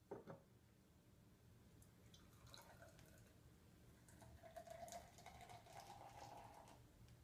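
Beer being poured from an opened can into a pint glass: a faint, steady liquid pour that builds over a few seconds and stops shortly before the end. There are two light clicks at the very start.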